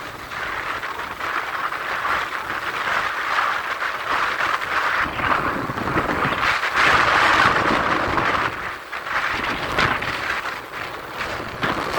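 Rainstorm: rain falling with gusting wind on the microphone, the noise swelling and easing and loudest about seven seconds in.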